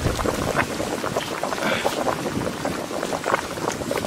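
Thick fish curry boiling in a large open pot: a steady bubbling with many small pops.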